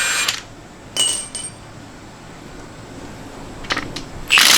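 A power tool's motor whine cuts off, then small metal parts clink sharply with a brief ring, twice, and tick again a few times later, as engine fasteners come off during a teardown. The power tool starts up again near the end.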